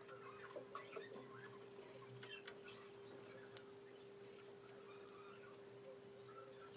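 Faint scraping and light clicking of a metal spatula working lipstick on a stainless steel mixing palette, busiest in the middle, over a faint steady hum.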